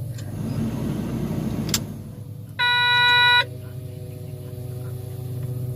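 A single horn blast of under a second, about halfway through, over the steady low rumble of heavy mining machinery's diesel engines. A short sharp click comes shortly before the horn.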